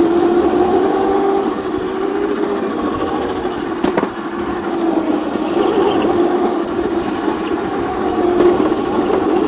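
Electric drift kart's motor whining as it is ridden, its pitch drifting up and down with speed, over a steady rush of wind and tyre noise. There is one sharp click about four seconds in.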